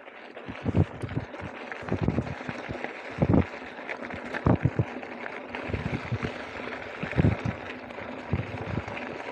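Mountain bike riding over a gravel track: a steady rush of tyre noise and rattling from the bike, with irregular low thumps as it jolts over bumps.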